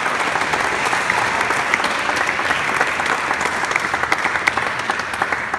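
Congregation applauding: a dense spread of many hands clapping, dying away at the very end.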